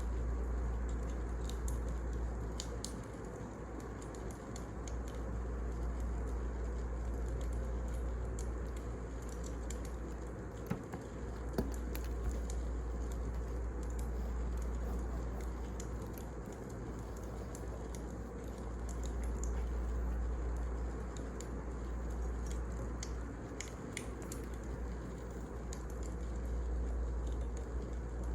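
Wood fire burning, with scattered sharp crackles and pops over a steady low rumble and hiss.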